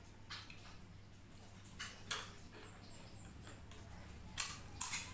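Close-miked eating sounds: chewing and wet mouth smacks of a mouthful of instant noodles, heard as a scatter of short sharp clicks, loudest about two seconds in and again near the end.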